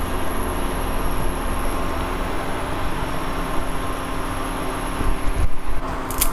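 Maggi instant noodles boiling in water in a pan on an induction cooktop: a steady hissing, bubbling noise with a steady hum and a faint high whine. A short clatter near the end.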